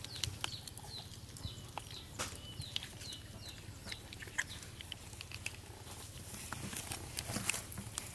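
Short, high-pitched squeaks, about two a second for the first three seconds or so, among scattered sharp clicks and rustles.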